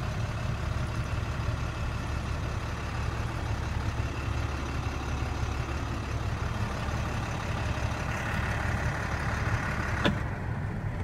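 International DT466 turbo diesel six-cylinder engine idling steadily, heard from inside the truck's cab. A single sharp click comes near the end.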